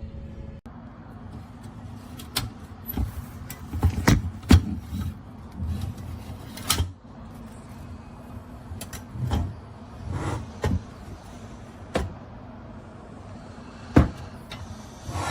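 Irregular knocks, clunks and rubbing of hard objects being handled, with a few louder bangs scattered through.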